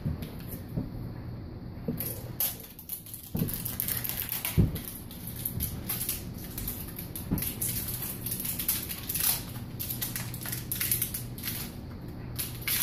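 Can of Great Stuff expanding polyurethane foam being sprayed: an irregular crackling, sputtering hiss that starts about two seconds in, with a sharper knock partway through.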